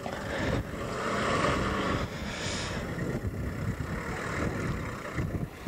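Toyota Land Cruiser 70-series turbo off-roader's engine running under load as it crawls over a mud mound, a steady low rumble.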